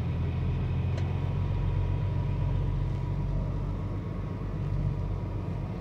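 Semi-truck's diesel engine running steadily, heard from inside the cab, with a single sharp click about a second in.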